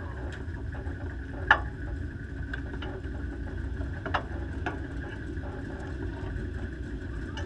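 Steady low engine rumble of idling vehicles, with sharp clicks about a second and a half in and twice around four to five seconds in, the first the loudest.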